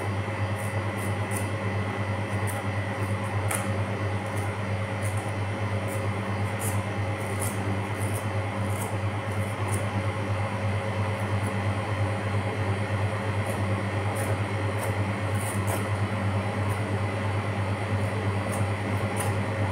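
Steady machine hum of kitchen equipment, the loudest sound throughout. Over it come short, scattered high ticks and scrapes of a knife paring the skin off a bottle gourd.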